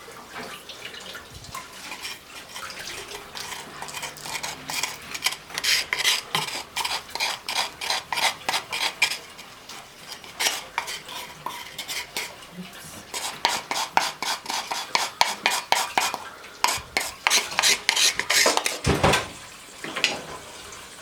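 A utensil stirring and scraping in a kitchen dish, with quick runs of clinks several times a second, and a heavier knock near the end.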